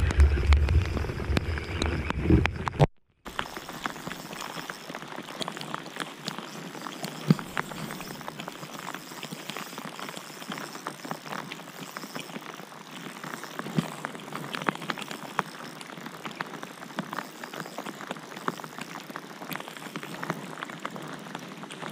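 Steady rain falling on the lake and the kayak: an even hiss with many sharp taps of drops landing close by. Before it, about three seconds of louder wind rumble on the microphone, cut off abruptly.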